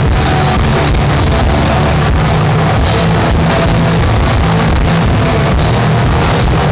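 Hardcore punk band playing live on electric guitars, loud and dense without a break.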